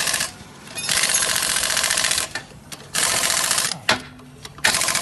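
Pneumatic impact wrench hammering on car wheel lug nuts in four bursts of rapid rattling, the longest over a second, with short pauses between as it moves from nut to nut to break tightened nuts loose.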